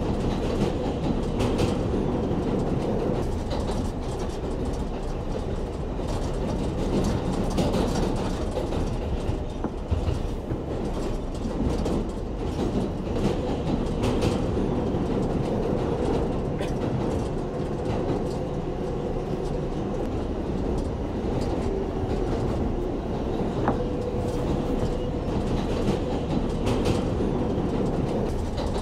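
New York City subway 7 train running between stations, heard from inside the car: a steady rumble with irregular clicks of the wheels over the rails, and a steady hum that fades in and out several times.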